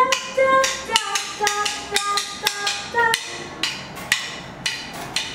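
A small band playing. Drumsticks tap out a quick, sharp rhythm under electric bass and guitar, with a short melody line of held notes that slide up into pitch.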